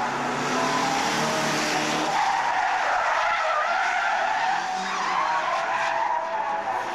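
A saloon car's engine revving, then from about two seconds in its tyres squealing on tarmac as the car is spun round.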